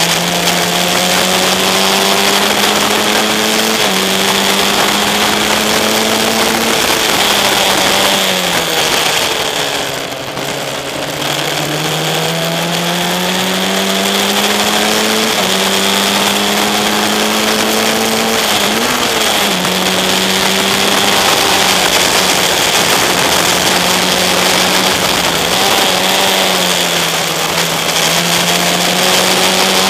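Single-seater racing car's engine at race pace, heard onboard: its pitch climbs through each gear and drops in steps at the gear changes. About ten seconds in it eases off and slows for a corner, then accelerates hard again. Rushing air noise from the open cockpit runs underneath.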